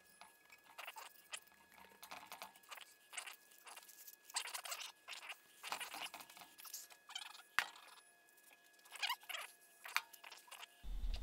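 Sandpaper being rubbed by hand over a 351M crankshaft journal: an irregular run of faint, scratchy back-and-forth strokes, a few each second, with one sharp click about two-thirds of the way through.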